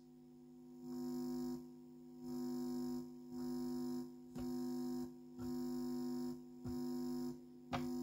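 Mains hum and buzz from an amplifier at maximum volume, swelling up and dropping away about seven times as hands come near the metal case of a passive AV switch box. The case is left floating, not connected to ground, and its inputs are open, so the hands couple mains interference into the audio as a bunch of additional noise.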